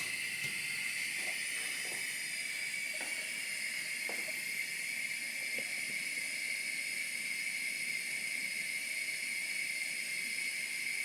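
Bialetti stovetop moka pot hissing steadily on the hot plate as steam pressure builds in the bottom chamber to force the water up through the coffee, with a few faint ticks.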